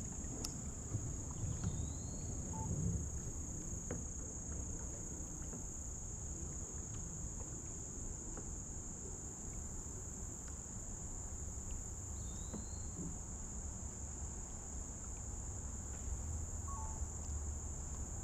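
Steady high-pitched drone of insects, with a low rumble underneath. Two short rising bird chirps come through, one about a second and a half in and another about twelve seconds in.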